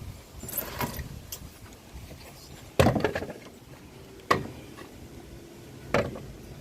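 Three sharp wooden knocks and clunks from handling a 2x10 pine board and tools, the first about three seconds in being the loudest and the other two following about a second and a half apart, with lighter clatter before them.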